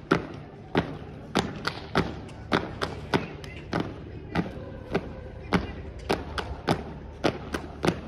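Sharp slaps and stomps of an unarmed drill team's routine: hands striking bodies and boots hitting asphalt in a fast, fairly regular beat of about two hits a second, some in quick pairs.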